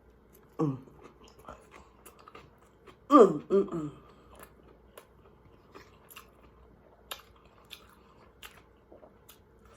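A man chewing a mouthful of chili-and-cheese-topped corn dog close to the microphone, with many small wet mouth clicks. A short voice sound dropping in pitch about half a second in, and a louder one about three seconds in.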